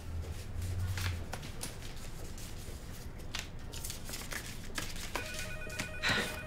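Light rustling and small handling clicks as someone rummages through belongings, with a telephone starting to ring about five seconds in: an electronic ring pulsing fast on a steady pitch.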